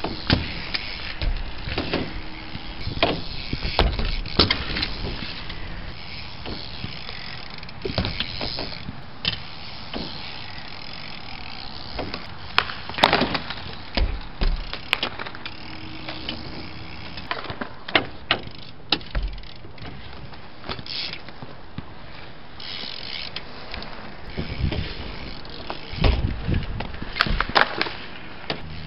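Sunday Eric Lichtenberger Pro BMX bike ridden on a concrete skatepark funbox: tyres rolling over the concrete, with many sharp clacks and thuds as the wheels hop onto the ledge and land.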